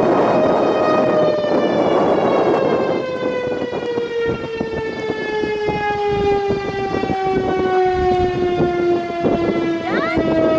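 Outdoor tornado warning siren winding down, its single wailing tone falling slowly and steadily in pitch, over wind noise on the microphone.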